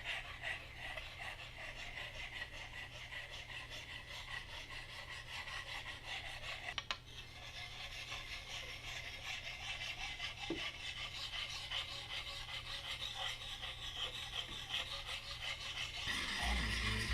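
Steel hatchet edge being sharpened on a hand-held sharpening stone: a steady rasping scrape of quick, repeated strokes, with a brief click about seven seconds in, getting louder near the end.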